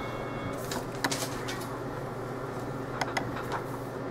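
Steady outdoor background noise with a low hum, broken by a few faint, short sharp sounds about a second in and again about three seconds in.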